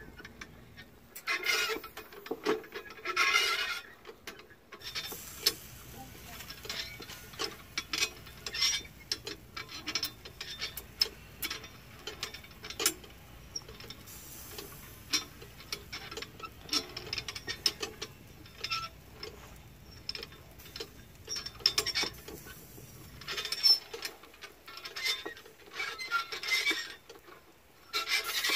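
Hand-cranked metal rotisserie spit being turned slowly, the rod rubbing and clicking against its metal supports in an irregular run of ticks and scrapes.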